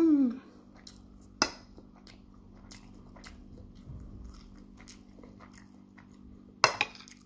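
A person eating jollof rice with a metal spoon: a short hummed "mmm" at the start, then quiet chewing with sharp clicks of the spoon against the plate about a second and a half in and again near the end.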